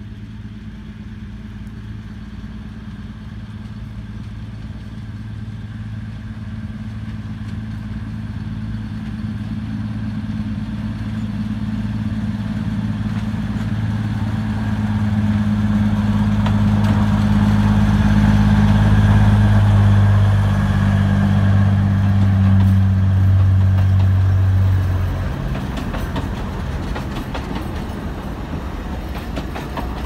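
Alishan Forest Railway diesel locomotive DL-41 running steadily as it approaches hauling a passenger train, growing louder and passing about 25 seconds in. After that the engine fades and the passing carriages' wheels click over the rail joints.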